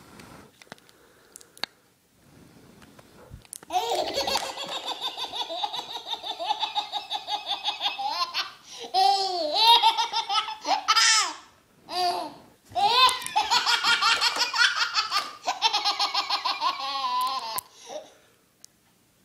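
A baby laughing hysterically, starting about four seconds in: long runs of rapid, high-pitched ha-ha-ha pulses, about five a second, with squeals between them and a short break near the middle.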